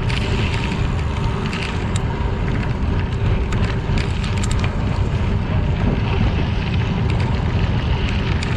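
Wind buffeting the microphone while riding a bicycle, over the steady rolling of tyres on crushed limestone, with scattered small ticks of gravel.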